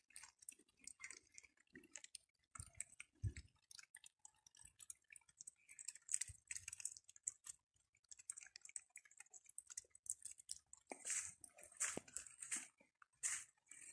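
Faint, irregular crunching footsteps on loose dirt and gravel.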